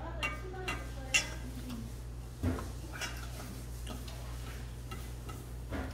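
Metal spoon and chopsticks clinking against a stainless steel bowl and dishes while eating: a handful of short, sharp clinks at uneven intervals, the loudest about a second in.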